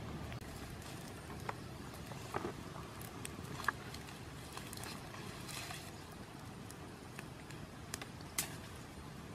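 Open wood fire with a few sparse crackles and pops over a steady low background noise.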